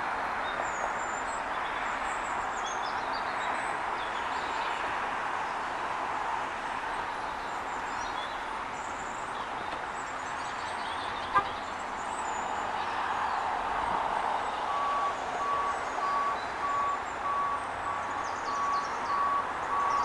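Steady rushing rustle of wind through tree leaves, with a few faint bird chirps and one sharp click a little past halfway. From about three-quarters of the way in, a vehicle's reversing alarm beeps steadily, about two beeps a second.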